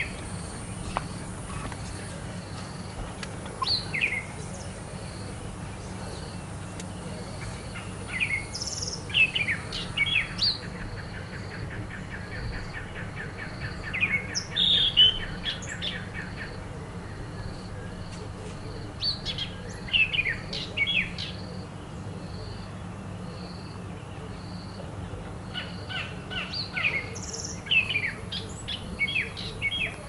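Wild birds calling in short sharp chirps and trills, coming in scattered clusters, with an insect's steady high ticking behind them.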